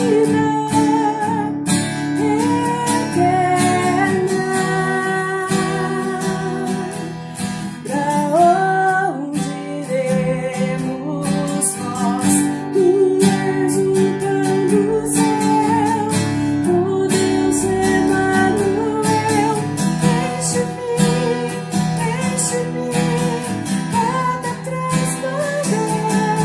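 A woman singing a worship song with a strummed acoustic guitar.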